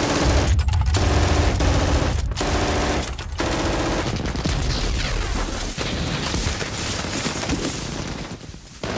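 Machine gun firing long rapid bursts, broken by short pauses about half a second, two seconds and three seconds in, over continuous heavy gunfire from many weapons. The firing eases toward the end.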